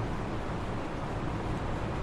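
Steady background noise, a low rumble with hiss over it, with no speech and no distinct event.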